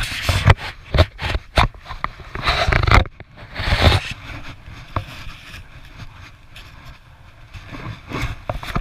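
A small plastic snow shovel scraping and crunching through packed snow, with a string of sharp knocks during the first few seconds, then quieter after about four seconds with a few more knocks near the end.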